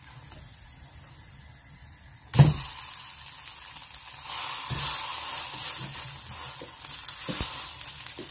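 A thick rice-and-lentil pancake (adai) is flipped with a metal spatula and drops into the hot oiled pan with a thud about two seconds in, after which the coconut oil sizzles loudly under it, with a few taps of the spatula against the pan.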